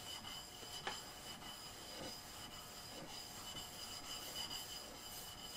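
Faint scraping of a steel chisel's flat back rubbed on an 8000-grit Shapton Glass water stone. It is taking off the burr pushed up while honing the bevel.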